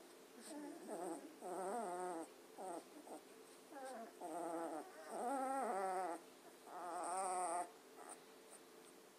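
Beagle puppies whining, about half a dozen wavering high cries, each under a second long.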